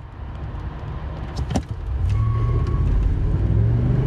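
Ford 7.3L gas V8 in an F-250, heard from inside the cab: it runs low and quiet at a standstill, then about two seconds in the truck launches and the engine gets suddenly louder under full-throttle acceleration. A sharp click comes just before the launch.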